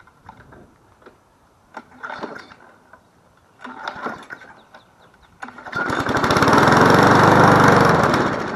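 Small gas engine of a Weed Eater push lawn mower being pull-started: a couple of short pulls on the recoil cord, then about five seconds in it fires and runs loudly for roughly three seconds before fading out.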